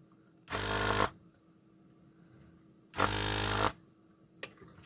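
993A electric desoldering gun's built-in vacuum pump buzzing in two short bursts, about half a second each and two and a half seconds apart, as the trigger is pressed to suck molten solder from the joints. A couple of faint clicks come near the end.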